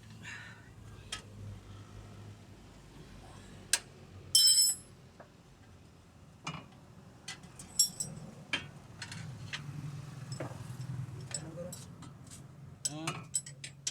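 Metal tools and parts clinking and tapping as they are handled, with a loud ringing clink about four seconds in, over a steady low hum.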